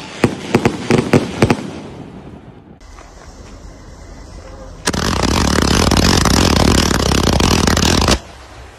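Fireworks: a rapid string of sharp cracks in the first second and a half that dies away, then after a lull a sudden, loud, sustained blast of noise from a large ground-level fireworks burst that lasts about three seconds and cuts off abruptly.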